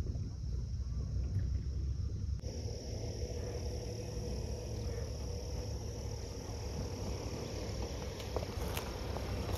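Night insects chirring steadily over a low rumble. The insect chorus comes in suddenly about two and a half seconds in, and a couple of faint clicks come near the end.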